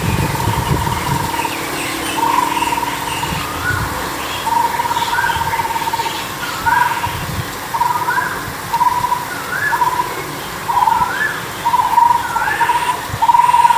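Outdoor bird calls: a short rising chirp repeated about once a second over a steady, pitched buzzing tone that keeps breaking off and starting again.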